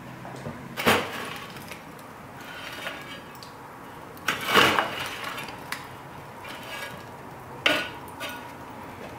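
Metal clanks and scrapes of a long-handled iron fire shovel working coals and ashes on a brick hearth. There are three sharp strikes about three seconds apart, the middle one the longest, with softer scraping between.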